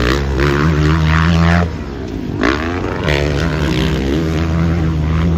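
Motocross dirt bike engines revving hard on the track, their pitch climbing and falling with throttle and gear changes, with a sharp rise in revs about two and a half seconds in.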